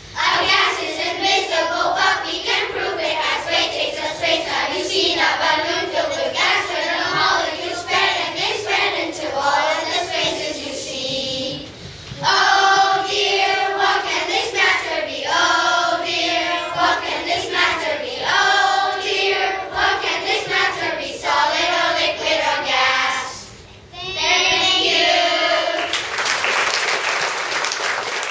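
A class of young children singing a song together in unison, in phrases broken by two brief pauses. Near the end the singing stops and applause begins.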